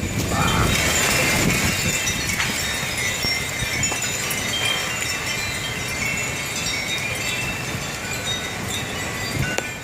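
Wind chimes ringing busily in gusty storm wind, many overlapping high metallic tones, over the low rush of the wind itself.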